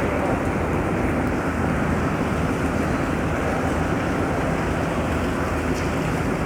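A vehicle running: a steady rushing noise with a low, even engine hum under it.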